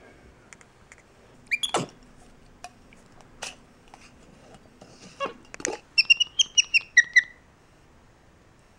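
Black-capped capuchin monkey calling: a single rising squeak, then past the middle a quick run of about ten high chirps lasting about a second, the last few dropping in pitch. A few faint clicks fall between the calls.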